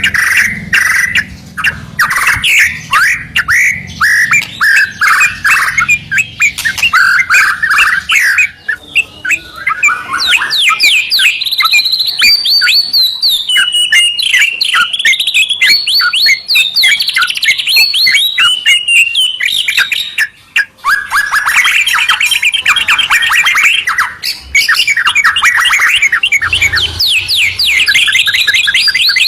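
White-rumped shama and yellow-vented bulbul singing loudly together in a continuous stream of rapid, varied whistled phrases and fast chattering trills, with a brief pause about two-thirds of the way through.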